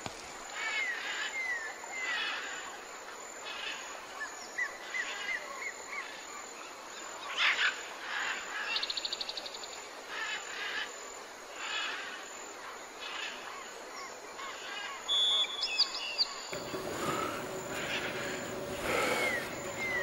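Several birds calling over a rainforest background: short repeated calls and pitch glides, with a rapid even trill about nine seconds in. A lower, steadier background comes in near the end.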